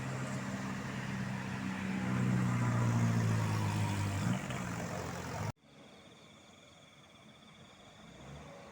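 A heavy vehicle's engine, most likely a passing tour bus, running with a steady low drone that grows louder about two to four seconds in. The sound cuts off abruptly about five and a half seconds in, leaving faint background noise.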